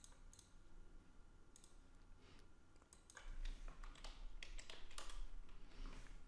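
Faint computer keyboard keystrokes as a command is typed. There are a few scattered taps at first, then a quicker, louder run of taps from about three seconds in, ending as the command is entered.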